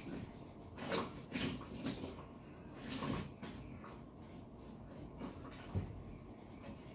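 Pencil scratching on lined notebook paper in short, scattered strokes as small round eyes are drawn in, with a few sharper scrapes about a second in and around three seconds.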